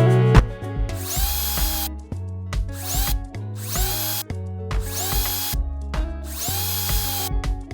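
Power drill run in about five short bursts, each spinning up with a rising whine, while fitting a door handle and lock to an aluminium hinged door. Background music plays under it.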